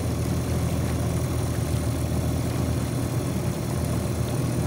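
Outboard motor of a small boat running steadily, a low even drone.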